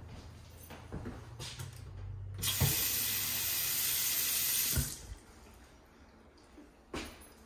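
Single-handle chrome bathroom faucet turned on, with water running into the sink basin for about two seconds before it is shut off, a click as the handle goes on and off. A single knock near the end.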